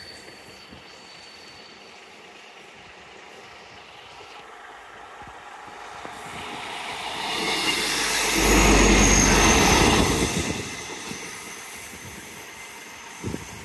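A Class 150 diesel multiple unit approaching and passing close by. The sound of the engine and wheels on the rails builds from about six seconds in and is loudest for a couple of seconds with a deep rumble, then fades away.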